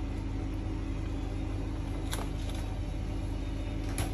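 Steady low kitchen hum while the noodles cook on the stove, with faint light clicks about two seconds in and again near the end.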